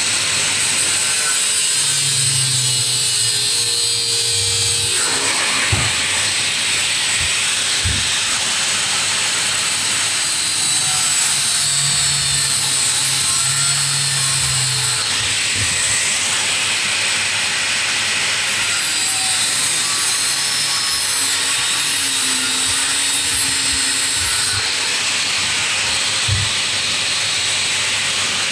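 Angle grinder cutting into a steel moped frame tube: a steady, loud grinding hiss that shifts a little in tone a few times as the disc is moved along the tube.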